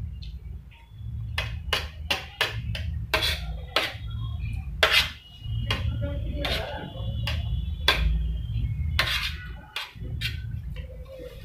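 Steel spoon scraping and clinking against a stainless steel plate while scooping fried rice, a quick series of sharp clinks with a faint ringing, over a steady low rumble.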